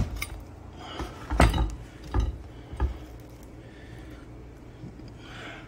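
Large kitchen knife crunching through a toasted sandwich with a crisp, browned cheddar crust and knocking against a wooden cutting board: several crunches and thumps in the first three seconds, then quieter handling as the halves are pulled apart.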